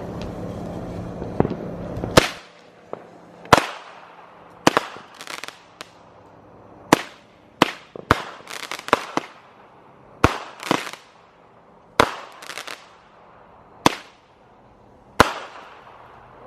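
A 9-shot, 200-gram consumer firework cake (Snafu) firing: sharp bangs, some in quick doubles or triples, about one a second from about two seconds in until near the end, each trailing off in an echo. A steady low hum at the start cuts off just before the first bang.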